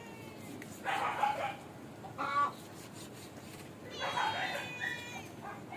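Chickens clucking in the background, with a rooster crowing about four seconds in, one long call that falls slightly at the end.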